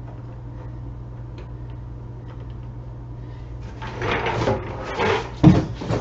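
A steady low hum. From about four seconds in, a large plastic trash can clatters and scrapes as it is lifted and handled, with a loud hollow thump near the end.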